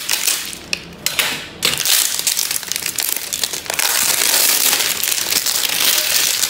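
Plastic packaging crinkling and rustling as it is pulled off a new exhaust elbow pipe, loudest for a couple of seconds near the end.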